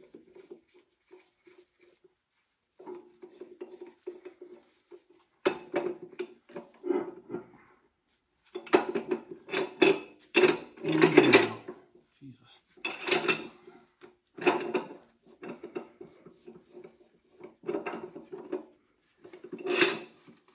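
Steel parts clinking and scraping in irregular clusters as a bearing splitter is worked into place between a gear and its shift slider on an NV4500 transmission shaft. The clatter is loudest in the middle.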